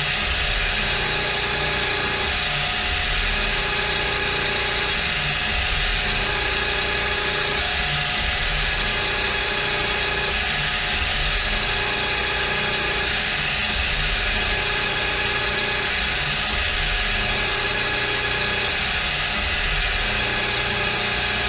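CNC milling machine's gear-driven spindle running steadily while machining a part, with a mid-pitched tone that comes and goes every couple of seconds.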